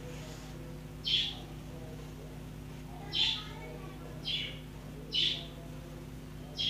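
A small bird chirping: five short, high calls spaced unevenly a second or two apart.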